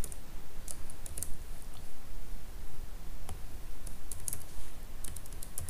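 Computer keyboard typing: irregular clusters of key clicks with short pauses between them, over a steady low hum.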